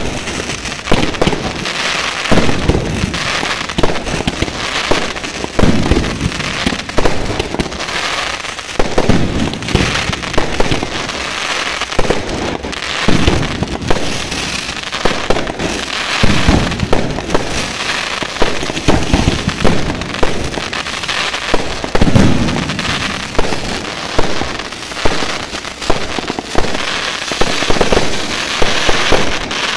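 Aerial fireworks display: a rapid run of launch and shell-burst bangs, about one every second, over a continuous hiss from the burning stars and comets.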